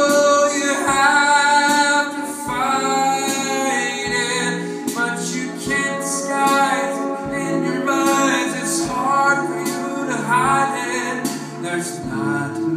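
Live solo performance of a song: electric guitar with a man singing, and a low thump about once a second keeping time.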